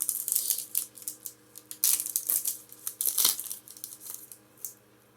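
Foil wrapper of a Pokémon booster pack crinkling and tearing open: a dense run of sharp crackles that stops a little before the end.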